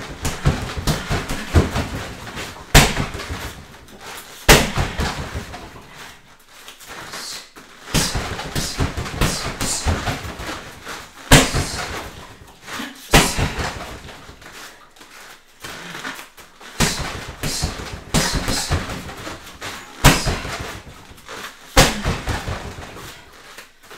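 Sharp thuds and slaps from a kickboxing combination of hooks, uppercuts and roundhouse kicks, with quick footwork on foam mats between. A loud strike lands every couple of seconds, with rapid smaller impacts between.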